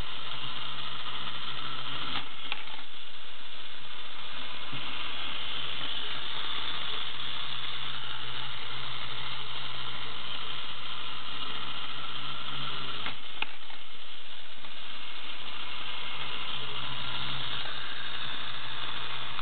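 Tin toy basketball monkey's clockwork-style mechanism running steadily, its gears whirring, with a short click a couple of seconds in and again a little past the middle as the mechanism catches or trips.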